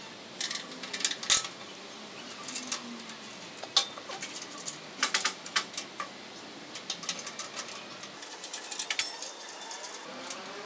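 Irregular sharp metallic clicks and clinks from gloved hands working the latch and front door of a steel barrel BBQ grill. The door is swung open near the end.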